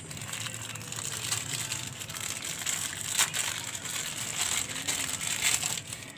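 Clear plastic packet crinkling and crackling as it is handled, an irregular run of small crackles and clicks that stops abruptly at the end.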